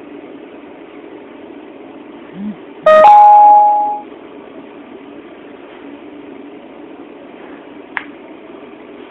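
A two-note chime rings once about three seconds in and fades after about a second, over a steady low room hum. A small click comes near the end.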